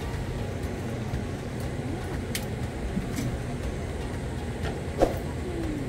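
Steady low outdoor rumble with a few faint ticks, and one sharp click about five seconds in.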